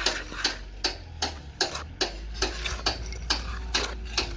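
A quick series of sharp taps or clicks, about four a second and slightly irregular, over a low steady hum.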